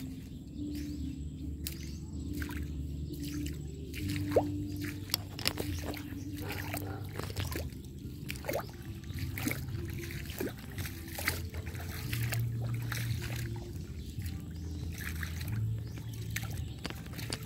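Shallow water trickling and dripping over a wet tidal mudflat, with many small irregular pops and clicks, over a low steady rumble.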